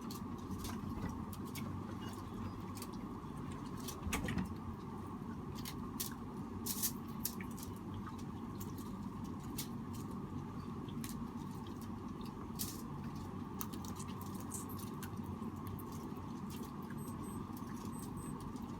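People eating seafood by hand: scattered small clicks, crackles and a few louder knocks of food, shells and plates being handled and chewed, over a steady hum.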